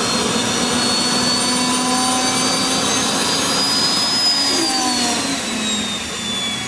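Small jet turbine engine on a homemade jet cart running with a loud rushing noise and a high whine. The whine rises gently, then drops away about four seconds in.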